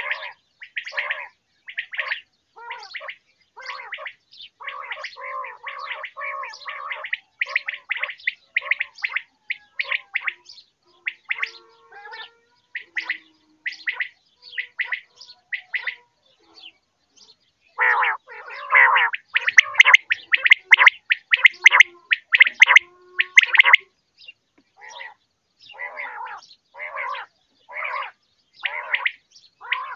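Quail calling: short chirping calls repeated about twice a second. The calls thin out to a few faint ones partway through, then come back in a loud rapid run before settling into the steady rhythm again.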